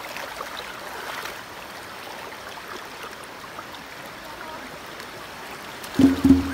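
Shallow river running fast over rocks, a steady rush of water. Background music cuts back in about six seconds in.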